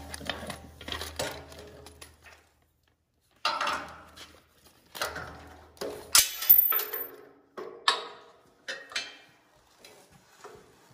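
Small metal hardware and tools handled on a transmission: scattered clinks, clicks and light rattles, with a short pause about three seconds in and the loudest clatter a little after six seconds in.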